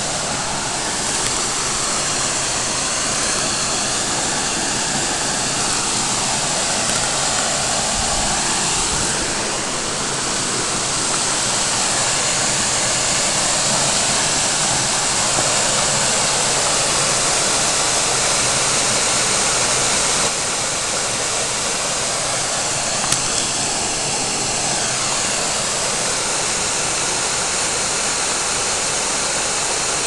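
Small waterfall on a spring-fed creek pouring into a pool: a steady rush of falling water.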